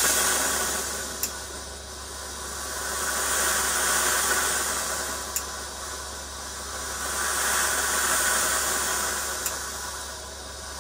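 Weijie 999 industrial gravity-feed steam iron, 1600-watt, hissing as steam jets out of all the holes in its soleplate. The hiss swells and fades about every four seconds, with a faint click near each fade.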